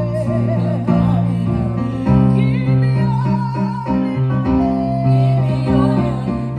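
Worship music: singing over keyboard chords and a steady bass.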